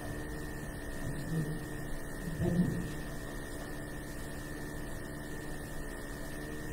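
Steady electrical hum with a thin high whine running under it, typical of a sound or recording system's noise. A brief voice-like sound comes about two and a half seconds in.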